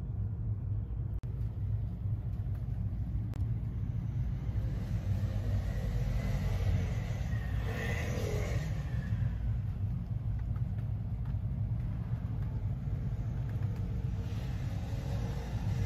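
Steady low rumble of distant road traffic. About eight seconds in, a vehicle passes nearer, swelling and then fading.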